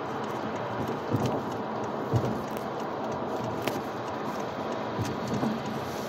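Steady road and tyre noise of a car driving at freeway speed, heard inside the cabin, with a few short low thuds about a second, two seconds and five seconds in.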